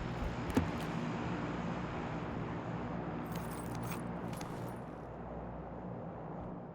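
In-game sound from gameplay: a steady engine-like drone with a sharp click about half a second in and brief rattling clicks a little past the middle.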